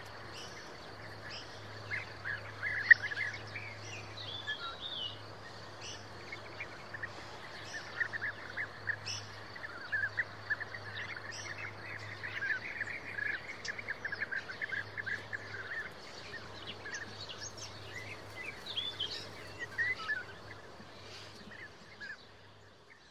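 European bee-eaters calling: clusters of rapid, rolling short notes, with thinner high chirps above them and a steady low hum beneath. The sound fades out near the end.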